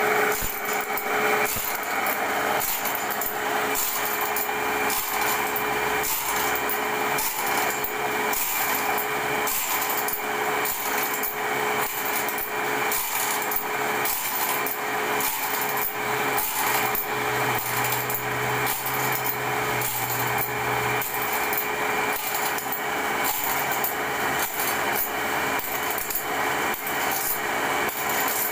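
Automatic band saw blade sharpening machine running: its grinding wheel dips onto each tooth in turn as the blade is stepped along, giving an evenly repeating rhythm of grinding strokes over the steady motor.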